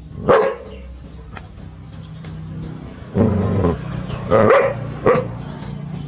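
Dog barking at a snake in alarm: one loud bark just after the start, then three more in the second half, the second of them drawn out longer than the others.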